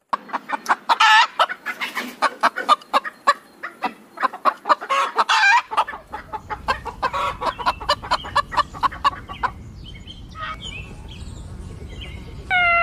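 Chickens clucking: a dense run of rapid clucks that thins out after about nine seconds, with a short louder call near the end.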